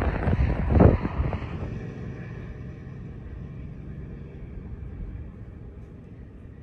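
Wind buffeting the microphone in heavy gusts, easing about two seconds in to a lighter, steady wind rush.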